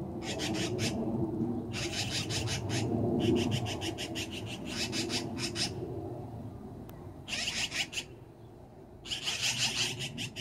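Black-billed magpies giving harsh rattling chatter calls, about six bursts of a second or so, each a fast run of scratchy notes. This is the magpie alarm chatter, raised here at a cat. A steady low rumble runs underneath.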